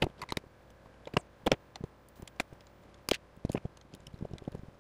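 Hands working ground wires and a Wago lever connector inside ganged steel 4x4 electrical boxes: irregular sharp clicks and small metallic knocks, the loudest about a second and a half and three seconds in.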